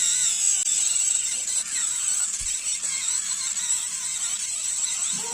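Electric callus remover with a coarse roller head, running against the heel to rub off dead skin: a steady high-pitched whirring with grinding noise.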